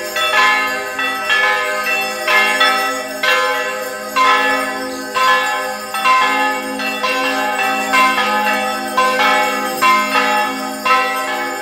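Church bells ringing in a steady peal for a Corpus Christi procession, a new stroke about every two-thirds of a second, each tone left to ring on under the next.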